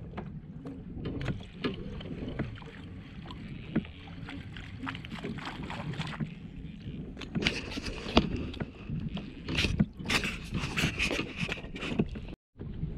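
Water lapping and splashing against a fishing kayak's hull, with scattered small knocks and clicks on the boat; the splashing grows busier and louder in the second half, and the sound cuts out briefly near the end.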